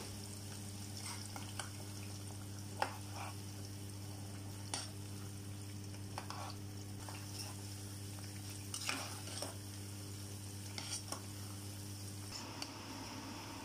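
Sliced onions frying in hot oil in a stainless steel saucepan, a steady sizzle, while a metal utensil stirs them and clicks against the pan now and then. A steady low hum runs underneath and stops shortly before the end.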